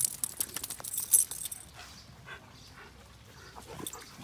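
Dogs at rough play: metal collar tags jingle rapidly through the first second and a half. A dog then gives a few short, high whimpers around the middle and near the end.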